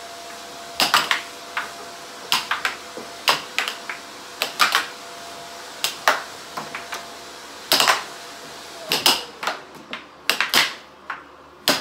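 Tabletop air hockey rally: the plastic puck clacking against the mallets and the table's rails in sharp, irregular knocks, sometimes several in quick succession, over a steady hiss.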